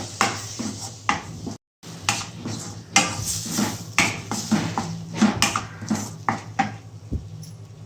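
A spoon stirring spice paste in a cooking pan, scraping and knocking irregularly against the pan's sides.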